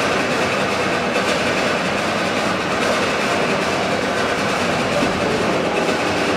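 Leigh Spinners Mill's twin tandem compound steam engine running steadily, a continuous mechanical noise in the engine house.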